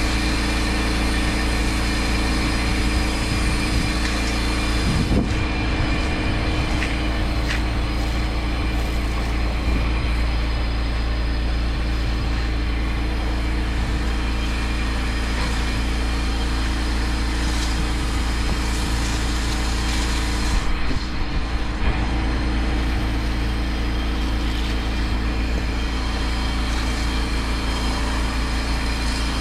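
Engine of a pressure washing rig running steadily at constant speed, with an even hiss over it. The sound shifts briefly about five seconds in and again about twenty-one seconds in.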